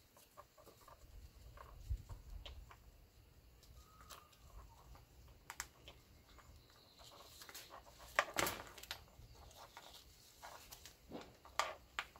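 Nylon webbing and plastic buckles of a snowshoe binding strap being handled and pulled apart: faint scattered clicks and rustles, with two louder short sounds about eight and eleven seconds in.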